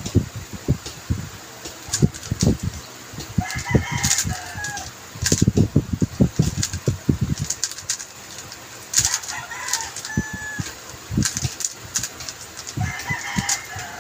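QiYi M Pro 3x3 speedcube being turned quickly in the hands: runs of rapid plastic clacks from the layer turns, densest in the middle, sparser towards the end. A bird calls three times in the background, each call about a second long.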